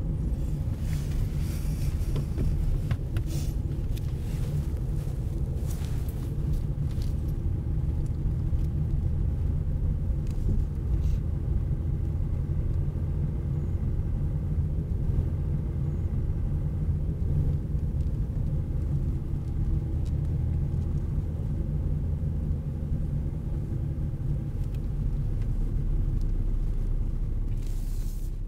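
Steady low rumble of a car driving, heard from inside the cabin, fading out at the end.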